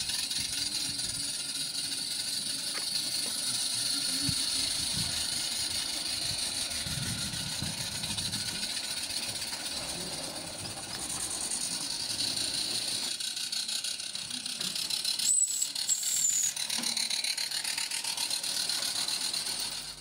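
Garden-railway model train running past on the track, a steady hiss and rolling clatter of the wheels, with a brief high squeal about fifteen seconds in.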